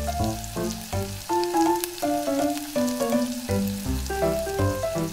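Background music, a stepping melody of short notes over a pulsing bass line, with a steady fine crackle like food sizzling layered on top.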